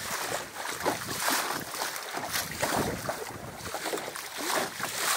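Water splashing and lapping irregularly against the hull of a small sailing dinghy under way in choppy sea, with wind blowing on the microphone.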